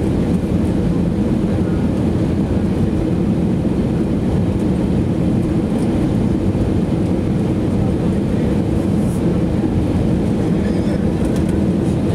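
Steady cabin roar of an Airbus A320neo descending on approach, heard from a seat over the wing: its Pratt & Whitney PW1100G geared turbofan engines and the rush of air past the fuselage blend into an even, low rumble.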